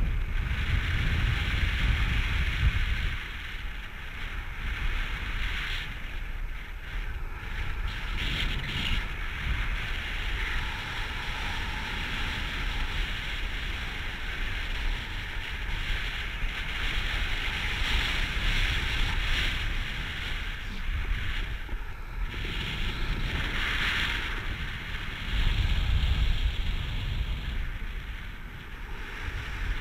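Airflow rushing over the microphone of a paraglider pilot's point-of-view camera in flight, a steady hiss with heavier low buffeting gusts at the start and again near the end.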